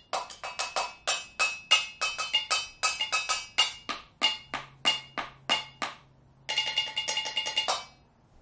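A pair of pencils drumming a steady groove on improvised household percussion: a Hershey's tin filled with pennies, a pencil holder and a cardboard box. After a short pause about six seconds in comes a quick, dense roll that stops about a second later.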